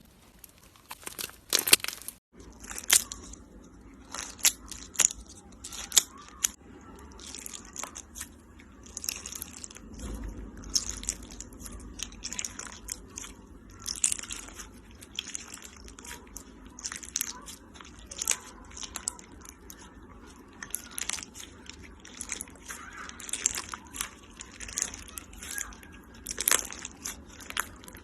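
Slime being squeezed and pressed by hand, making irregular crunching crackles, several a second.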